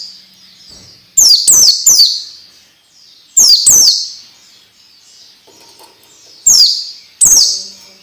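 A small songbird calling in sharp, high, downward-sweeping chirps, given singly or in quick runs of two or three with short pauses between. This is the kind of recording played to train oriental white-eyes to sing.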